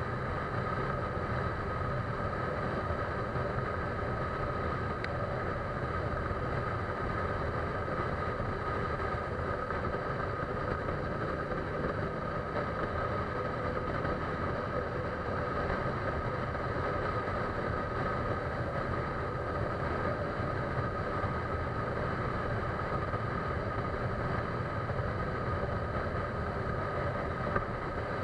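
A motor running steadily at an even speed: a constant rumble with a steady hum, without change throughout.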